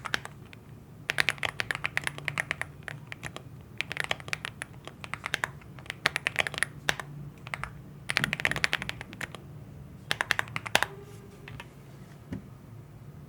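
Typing on a Leobog Hi75 aluminium mechanical keyboard with factory-lubed Greywood linear switches: rapid keystrokes in five quick bursts with short pauses between them. The typing stops about two-thirds of the way through.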